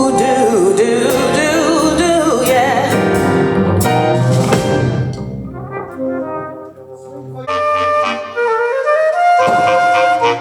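Big band horns play out the end of a blues tune, with brass and saxophones holding sustained notes. The sound dies away about five to six seconds in, and after a short lull the saxophone section begins a new tune with long held notes.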